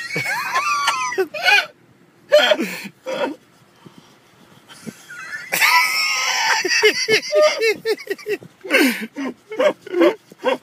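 A person laughing hard in high-pitched bursts, with a short lull about midway.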